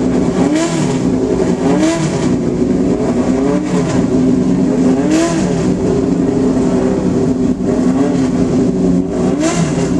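Racing car engine with open intake trumpets running and being blipped, its pitch rising and falling in repeated throttle blips every second or so.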